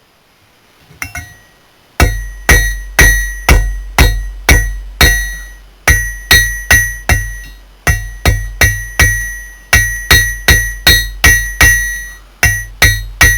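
Hand hammer striking hot steel on an anvil, drawing out the ends of a striker forged from an old file. From about two seconds in come loud blows, roughly two a second in runs with short pauses, each with a dull thud and a high, lingering ring.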